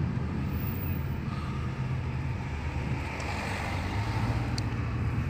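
Steady low rumble of a car's engine and tyres on the road, heard from inside the cabin while driving in slow traffic.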